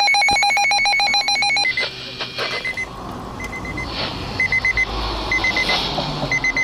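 Broadcast emergency alert tone: a loud, rapidly warbling electronic tone that cuts off about a second and a half in. It is followed by groups of four short high beeps, repeating about once a second over a hissy background.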